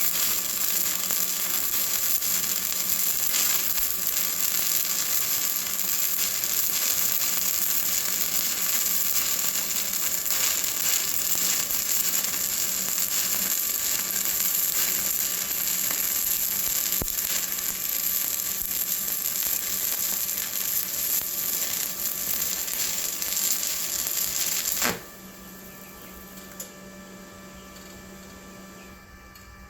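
A stick welding arc on a 7018 electrode crackling steadily for about 25 seconds, then cutting off suddenly as the arc is broken. A quieter steady hum, the welding machine, is left underneath.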